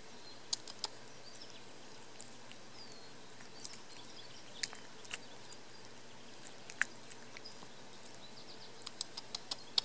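A cat eating wet pâté cat food off a glass plate: scattered wet clicks and smacks of chewing and licking, coming in a quick run near the end.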